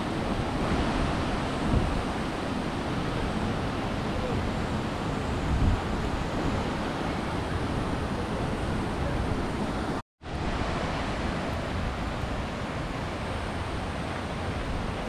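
Mountain stream rushing over rocks, a steady rush of water, with two low thumps in the first half. The sound drops out for an instant about ten seconds in, then the rushing carries on.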